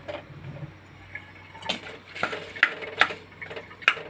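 Metal ladle stirring mung beans in a stainless steel pot, clinking and knocking against the pot's sides in a series of short sharp taps that start about halfway through.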